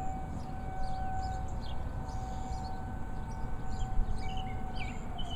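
Outdoor tornado warning siren sounding one steady tone, which starts to drop in pitch near the end as the siren winds down at the close of its test.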